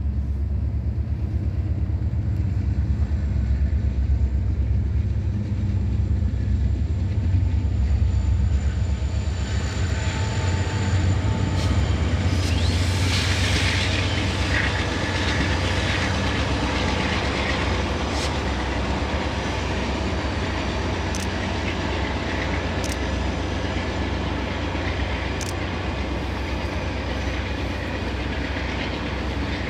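Union Pacific diesel-electric freight locomotives, an SD70M and a C44/60AC, passing under power with a heavy low engine drone that swells to its loudest about a dozen seconds in. After that comes steady wheel-on-rail noise from the train of empty double-stack well cars, with occasional sharp clanks and clicks.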